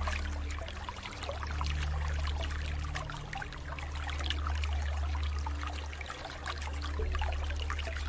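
Water trickling and splashing in a steady stream, with many small droplet splashes. Underneath are low sustained tones that change pitch every couple of seconds.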